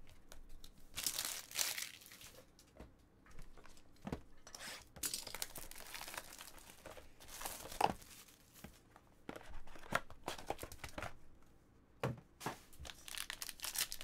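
Trading-card packaging being handled and torn open: repeated bursts of ripping and rustling, with a sharp knock about eight seconds in, and a foil card pack crinkling near the end.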